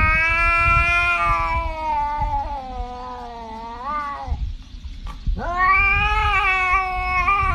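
Domestic cat yowling: one long drawn-out call of about four seconds that bends up in pitch at its end, then, after a short pause, a second long yowl that is still going at the end.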